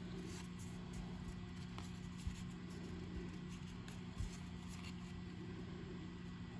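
Faint handling of trading cards as a pack is flipped through: soft rustles and light ticks of card stock over a steady low hum, with two soft low thumps.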